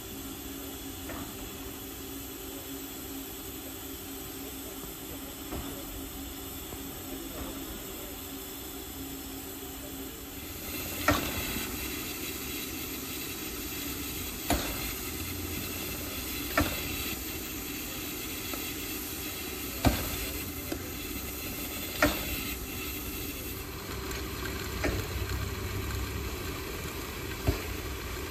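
Class 86 steam tank locomotive 86 1333-3 hissing steam, with a steady low hum under it at first. About ten seconds in the hiss grows louder, and sharp metallic knocks follow every two to three seconds.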